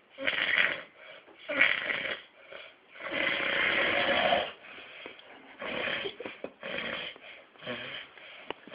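Snoring: about six uneven snoring breaths, the longest lasting about a second and a half around three seconds in. A short sharp click comes near the end.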